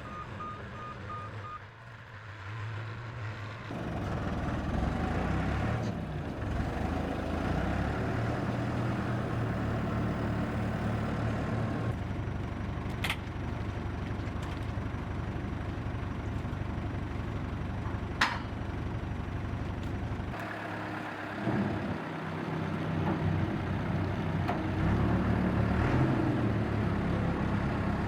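An engine running steadily, with two sharp clicks in the middle; it drops off for a moment near the end and then picks up again.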